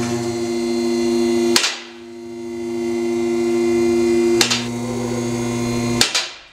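Two-post vehicle lift's electric hydraulic pump running with a steady hum as it raises the vehicle. Three sharp clacks break it, and it stops about six seconds in.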